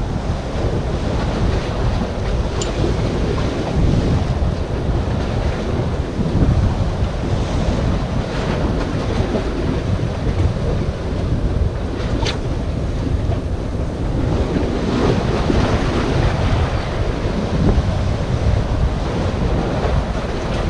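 Waves breaking and washing against the granite boulders of a jetty, under a steady low rumble of wind buffeting the microphone. The surf swells and eases, and there are two brief sharp clicks, one near the start and one about twelve seconds in.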